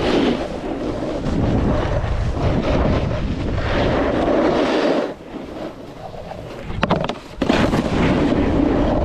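Snowboard sliding and carving over snow, with wind rushing over the microphone. It quiets for about two seconds about five seconds in and comes back loud with a couple of sharp knocks.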